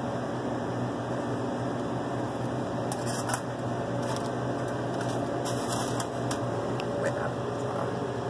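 Steady low machine hum with a hiss, with a few short faint clicks from about three seconds in.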